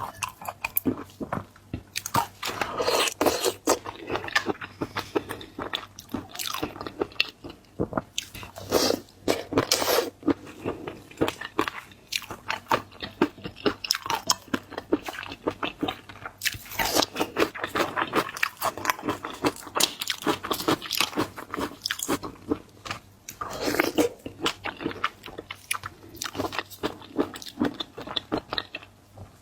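Seafood being bitten, crunched and chewed up close: a dense run of irregular crackling bites and wet chewing.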